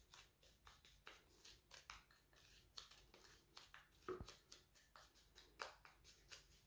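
Faint, repeated scraping of a wooden spatula against a small glass bowl, stirring a gritty paste of soap, rose water and sugar, about two strokes a second.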